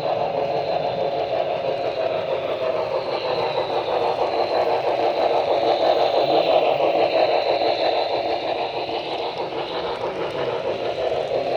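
Model freight train hauled by a Santa Fe 4-8-4 Northern model locomotive running along the track, a steady rolling rumble of wheels on rail that grows a little louder about six seconds in and then eases.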